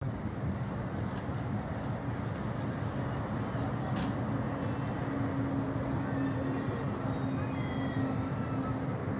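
A steady rumble with a thin, high-pitched squeal held over it from about three seconds in, wavering slightly in pitch, like metal wheels squealing on rails.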